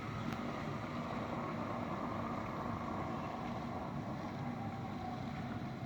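Steady low rumble and hiss with a faint hum, without change or distinct events.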